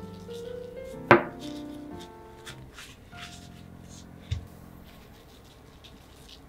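Salt-and-pepper shaker and paper towel handled over sliced ham: a sharp tap about a second in, then a run of short shakes and rustles, and a dull thump about four seconds in as the ham is pressed down. Quiet piano music fades out underneath.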